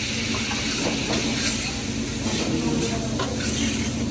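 Restaurant din: a steady background hum and hiss with scattered light clinks and ticks of cutlery.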